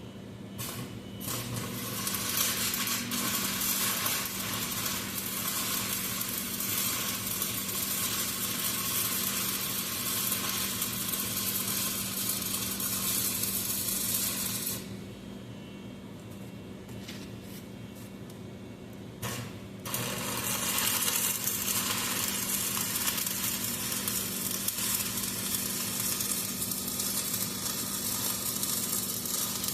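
Wire-feed (MIG) welder laying a bead: a steady crackling sizzle in two long runs, with a break of about five seconds in the middle. A steady low hum runs underneath.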